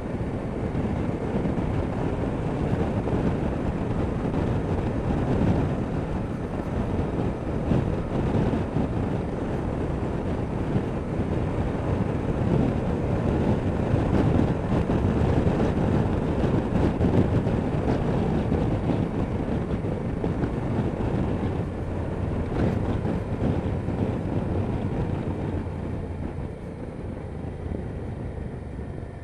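Motorcycle riding at road speed: steady wind noise on the microphone over the running engine of a 1999 Honda Deauville NT650V, a V-twin. The sound gets quieter over the last few seconds.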